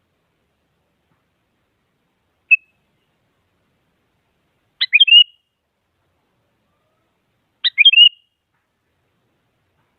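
Sooty-headed bulbul calling: one short note, then two brief phrases of a few quick whistled notes, about three seconds apart.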